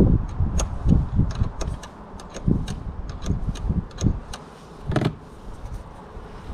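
Irregular clicks and knocks of a car battery's negative terminal clamp being wiggled loose from its post, with a sharper knock about five seconds in.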